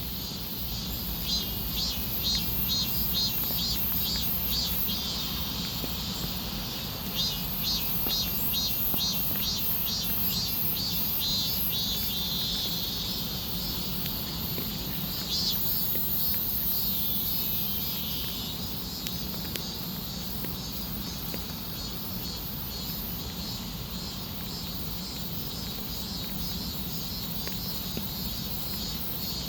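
Insects chirping in rapid, evenly repeating high-pitched pulses, which thin out after about eighteen seconds, over a steady low rumble.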